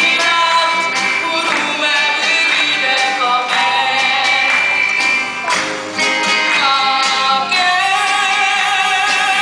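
Live music: a singer holding long notes over plucked guitar accompaniment.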